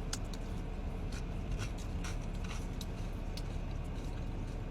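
A person eating chili topped with tortilla chips: chewing, with scattered small clicks and crunches, over a steady low hum.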